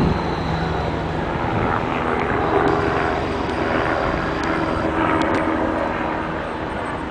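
Hudson-Bergen Light Rail car running past, a steady rumble with a faint low hum that eases slightly near the end.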